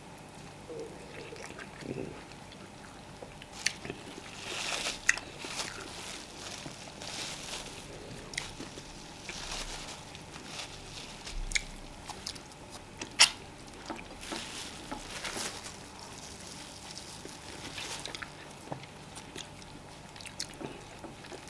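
Two people eating fufu with vegetable soup: soft chewing and wet mouth sounds, with scattered small clicks and taps, the sharpest about thirteen seconds in.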